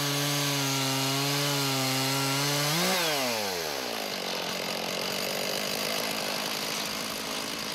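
Two-stroke chainsaw mounted on a Portamill chainsaw sawmill, running at a high steady speed. About three seconds in its pitch lifts briefly and then falls away, and a steady rough rasping of the chain cutting through the log takes over.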